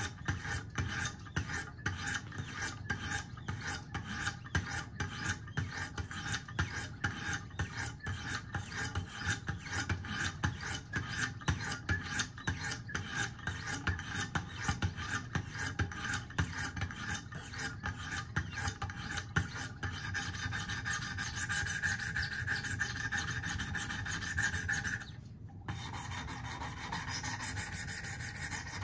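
Sharpening stones on a Wicked Edge guided sharpening system rubbed in alternating strokes along a clamped pocket knife's steel edge: a quick, even rasping rhythm as the stones grind out chips in the edge and reestablish the tip. The strokes break off briefly near the end, then go on more quietly.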